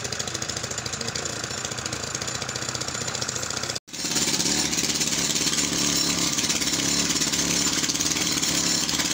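Rock-breaking machine hammering at a large boulder: an engine running under a rapid, steady pounding. The sound drops out for an instant a little under four seconds in and comes back louder.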